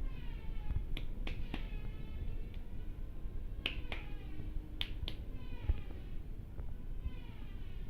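Sharp snaps and cracks from a barber's head-and-neck massage, coming in quick groups of two or three, seven in all over about four seconds.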